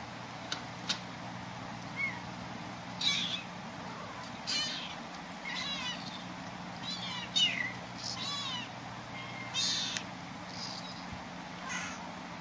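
Young kittens mewing repeatedly in short, high-pitched cries. Two sharp clicks sound about half a second and a second in.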